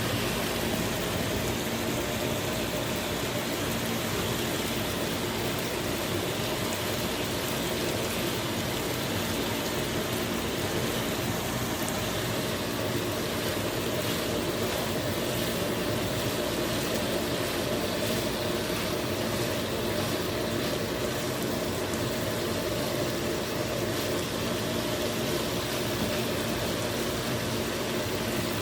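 Food sizzling in a frying pan on the stove: a steady hiss with a low, even hum underneath.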